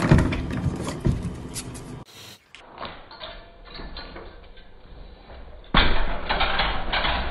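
Knocks and thumps of a puppy's paws batting at the bottom of a door on a wooden floor. Later a metal baby gate suddenly clatters loudly as it tips over under a climbing cat.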